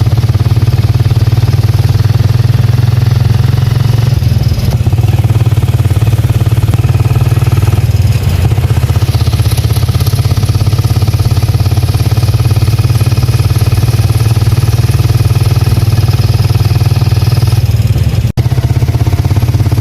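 Motorcycle engine running steadily, loud and close, with a brief dropout near the end.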